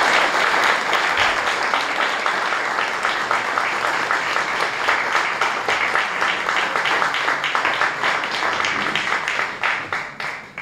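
Audience applauding: a full room clapping steadily, thinning out and fading near the end.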